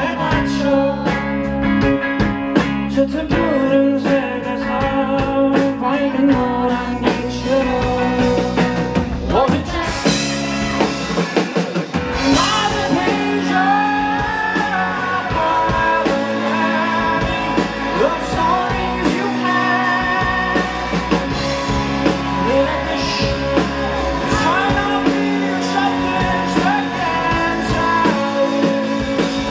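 A rock band playing live: a sung vocal over guitars, bass and drums.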